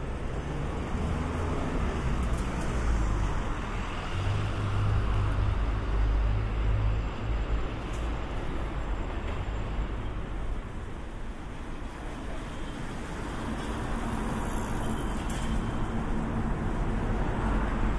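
City street ambience: a steady low rumble of road traffic, with engine hums from passing vehicles a few seconds in and again near the end.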